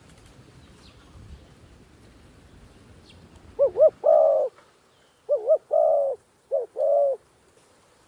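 Spotted dove cooing: three phrases beginning about three and a half seconds in, each two short coos followed by a longer one.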